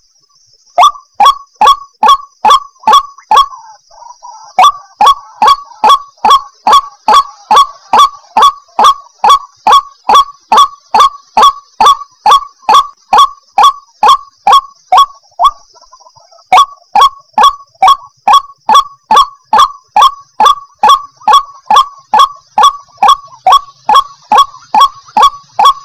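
White-breasted waterhen calling: a loud, rapid run of sharp, repeated notes, about three a second, broken by short pauses about 4 s and 16 s in.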